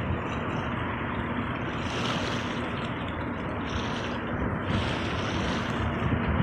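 Sea waves washing in continuous surf, swelling and easing every second or two, with wind rumbling on the microphone.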